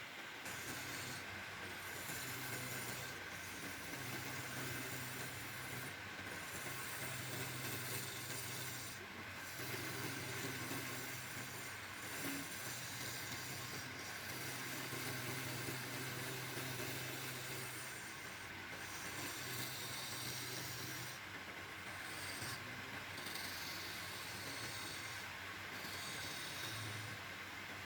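Woodturning lathe running steadily, with a hum and a broad hiss that drops out briefly every few seconds.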